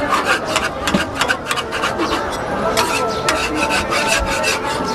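Metal spatula scraping again and again across a flat griddle as a dosa is loosened and folded.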